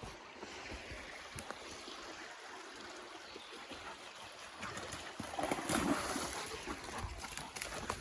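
Water trickling in a stream, with a louder, noisy stretch about five seconds in that lasts a second or so.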